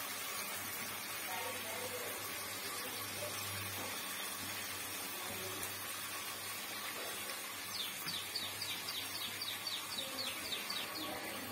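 Steady hiss of vegetables and chilli sauce frying in an aluminium kadai on a gas burner. About eight seconds in, a bird chirps rapidly, a run of quick high chirps for about three seconds.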